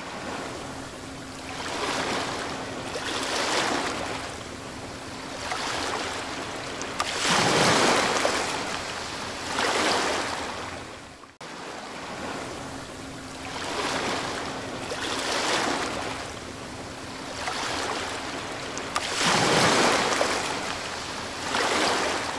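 Water waves washing in slow swells a couple of seconds apart, with a stronger surge about a third of the way in and again near the end. The same stretch of wave sound plays twice in a loop, over a faint steady hum.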